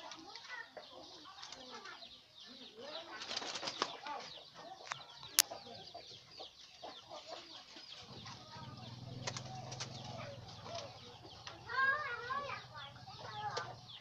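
Birds in an aviary of doves: constant short chirps and ticks with wing flaps, and a louder run of warbling calls near the end. A single sharp click about a third of the way in, and a low steady hum comes in about halfway.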